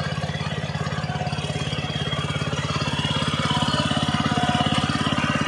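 Gasoline engine of an ASIA AMC 660M walk-behind hand tractor running steadily, its firing pulses even, getting slightly louder a few seconds in.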